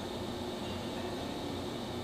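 American 38 x 108 engine lathe running under its 30 hp spindle motor, with a steady hum and a faint high whine from the drive and headstock gearing.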